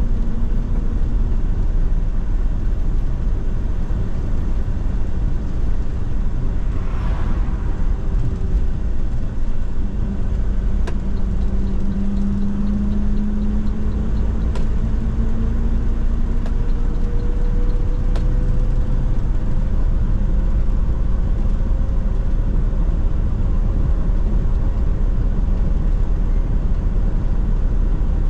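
Inside an MMI Urby LE CNG city bus on the move, its Iveco 3.0-litre CNG engine and Hi-Matic automatic drivetrain running under a steady rush of air noise from an open vent. A faint whine rises slowly in pitch through the second half, with a brief hiss about seven seconds in and a few sharp clicks.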